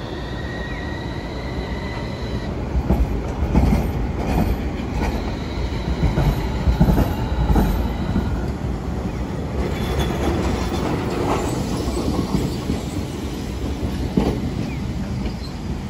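Portram low-floor tram pulling away, its motor whine rising in pitch over the first two seconds or so. Its wheels then knock repeatedly over the rail crossings of the junction, with a brief high squeal of wheels on the curve about ten seconds in.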